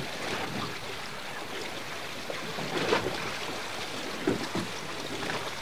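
Steady wind and sea noise aboard a boat, with a brief knock or rustle about three seconds in.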